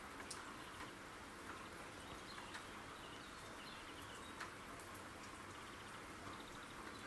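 Faint steady rain with a few scattered drips, and faint bird chirps now and then.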